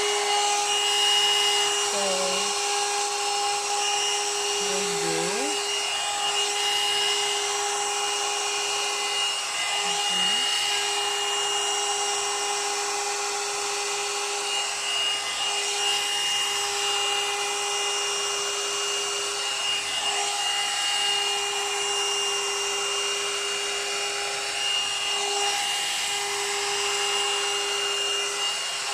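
One-step hair dryer brush running steadily: a high motor whine over a rushing hiss of air, very noisy, like a vacuum cleaner. It is set to low but runs as loud as on high, which the owner takes for a defective speed switch.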